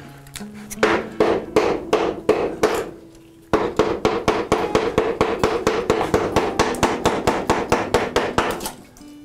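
A chisel driven by quick mallet taps into a kerfed hardwood block, chopping out the waste between the saw cuts. Spaced strikes come about three a second, then a brief lull about three seconds in, then a fast, even run of about five taps a second.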